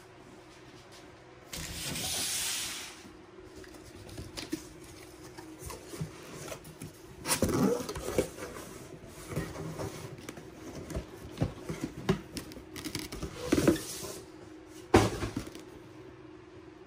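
Cardboard shipping box being handled and opened on a wooden table: a long scraping rush about two seconds in, then irregular rustling, scrapes and knocks of cardboard, with a few louder knocks as the shoe box inside is lifted out and set down near the end.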